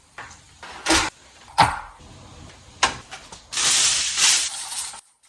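A few separate knocks and clicks of things being handled, then about a second of hissing rustle, as leftovers are got out and readied to eat.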